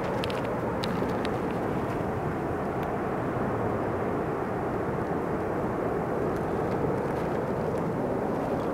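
Volcanic gas venting from a fumarole in the crater of the active Gorely Volcano: a steady, even rushing noise with no gusts or breaks.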